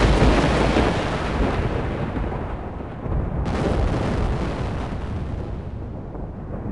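Two loud claps of thunder. The first breaks sharply just before this sound begins and the second about three and a half seconds in; each is a deep rumble that slowly fades.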